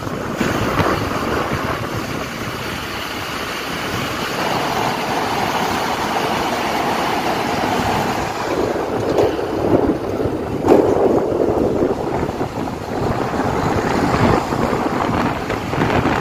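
Steady rush of wind over the microphone and road noise from a moving vehicle, swelling and easing at times.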